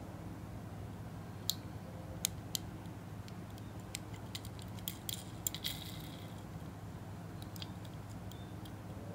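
Small clicks and ticks of fingers handling a Hot Wheels die-cast car as its rubber tyre is pressed back onto the wheel. About a dozen sharp ticks come mostly between about 1.5 and 6 seconds in, over a low steady hum.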